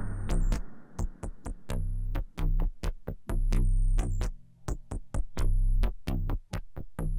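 Experimental electronic music (IDM): rapid sharp digital clicks in an uneven rhythm over deep synthesizer bass notes, with short high chirps that drop in pitch.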